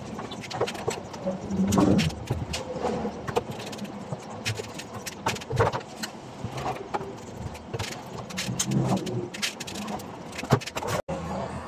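Irregular clicks and knocks of hand tools and metal parts on a portable welding machine's casing as it is taken apart.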